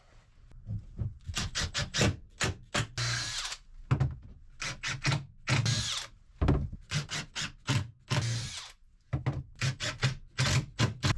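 Cordless drill run in many short trigger bursts with brief pauses between them, fixing the lower track of a sliding door to the floor.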